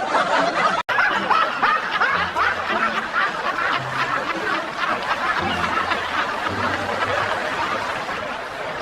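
Several people snickering and chuckling together in continuous laughter, broken by a brief dropout about a second in.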